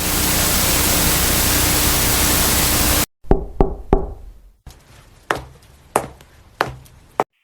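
Loud static hiss that cuts off suddenly about three seconds in, followed by a series of sharp knocks at uneven intervals, the first few with a short ring after them.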